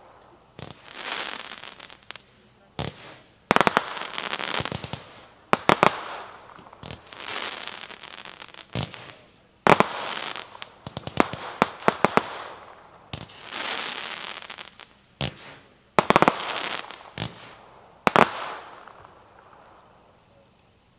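A 50-shot fireworks cake firing in sequence. Sharp launch and break reports come one or two a second, often in quick pairs, and each burst is trailed by about a second of crackle. The last break comes near the end and then the crackle fades away.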